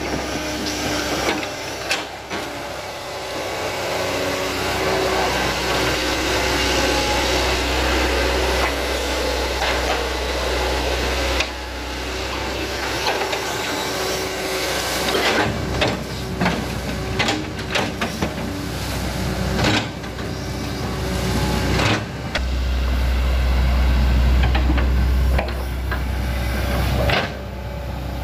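Hitachi Zaxis 110MF hydraulic excavator's diesel engine running under load while it digs mud out of a ditch, with clanks and knocks from the boom and bucket. The engine's deep note grows louder about two-thirds of the way in.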